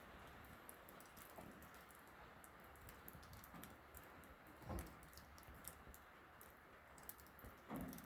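Faint rain on a metal barn roof: irregular light ticks of drops over a soft steady hiss, with two brief low sounds about five and eight seconds in.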